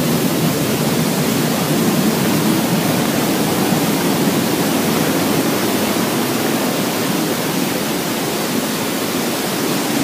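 Waterfall water rushing over rocks, a steady, even noise with no breaks.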